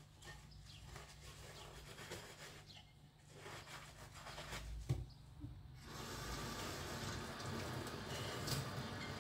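Dishes being washed by hand at a stainless-steel sink: a sponge rubbing a plate with small clinks and one sharp knock about five seconds in. Then the tap comes on and water runs steadily into the sink.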